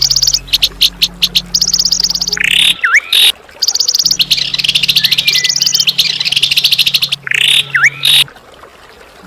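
Harsh wild bird calls of the kind used as masteran tutor recordings for songbirds: fast high-pitched rattling trills alternate with short rasping calls and a sharp dipping whistle note. A low steady hum sits underneath and drops out twice.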